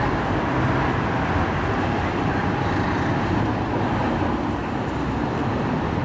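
Steady city traffic noise, a continuous even hum of road vehicles with no single event standing out.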